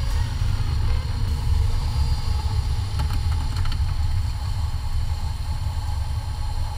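A car's low, steady rumble, with a few faint clicks about three seconds in.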